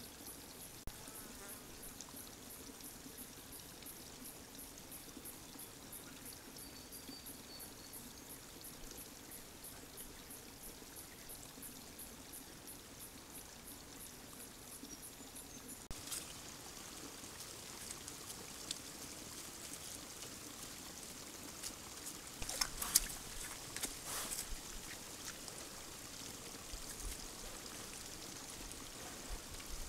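Faint trail-camera sound at a sambar deer wallow: a fast, even high pulsing runs through the first half while a deer stands with its head at the puddle. After a cut, a louder hiss follows, with a few knocks and rustles a little past the middle as a velvet sambar stag moves close to the camera.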